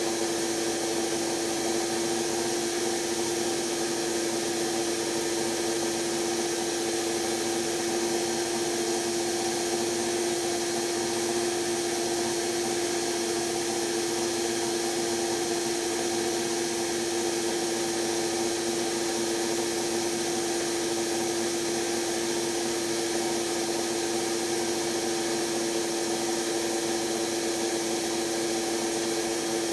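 Electra ELEC1647A3 washing machine's brushed motor running at a constant speed with a steady whine over a hiss. Its commutator is damaged and the motor is failing.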